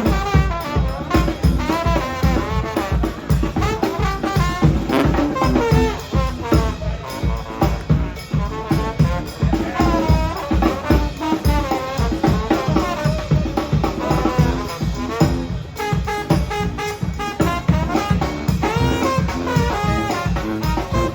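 New Orleans-style brass band playing live: horn lines over a steady drum beat.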